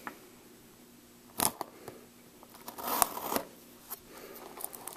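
A plastic-wrapped cardboard box of baseball cards being handled and turned in the hand: a few short crinkles and taps, with a brief rustle about three seconds in and several quick crinkles near the end.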